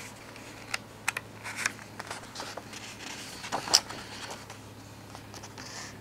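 Paper pages of a coloring book being turned by hand: soft rustles and light taps, with one louder rustle about three and a half seconds in.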